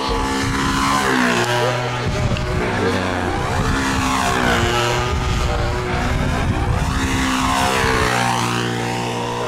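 Control-line stunt model plane's small engine buzzing as it circles, its pitch rising and falling in repeated sweeps as the plane swings past and loops through its manoeuvres.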